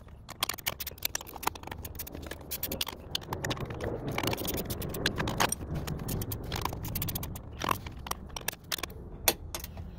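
Hand tools at work on a Jeep Grand Cherokee WJ rear door's hinge bolts as they are tightened: a run of irregular small metallic clicks and scrapes.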